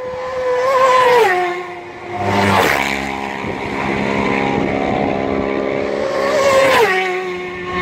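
Racing motorcycles passing at full speed. A high engine note drops in pitch as one goes by about a second in, a loud rush comes about two and a half seconds in, and another pitch drop comes near the end.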